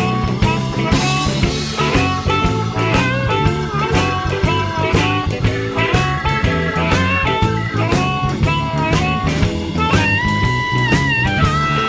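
Background music: a guitar-led blues-rock track with bending guitar notes over a steady drum beat.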